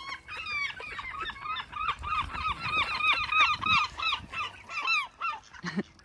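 Herring gull giving its long call: a run of over a dozen yelping notes at about two to three a second, each one rising and then falling in pitch, ending about a second before the close.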